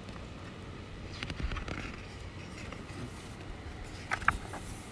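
Quiet pause with a steady low hum, a short rustle about a second in and two soft clicks near the end.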